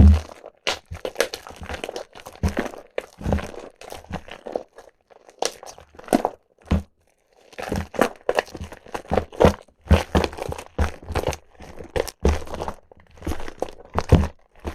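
Soaked, mushy bar soap being squeezed and crushed by hand: irregular wet crackling and squishing in clusters, with a short pause about halfway through.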